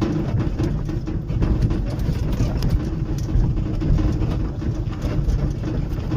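Auto-rickshaw engine running steadily under way, with road rumble and scattered short clicks and knocks.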